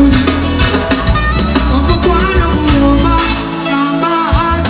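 Live band playing an upbeat Ugandan pop song, with drum kit, bass guitar and electric guitar. The bass and kick drum drop out for a moment about three and a half seconds in, then come back.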